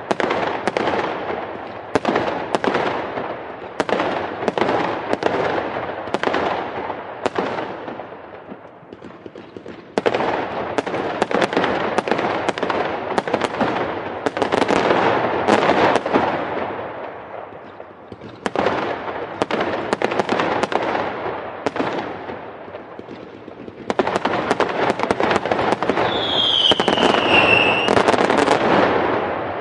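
Fireworks going off in rapid volleys of sharp bangs and crackling, in waves that start loud and die away every few seconds. A falling whistle rises above the bangs near the end.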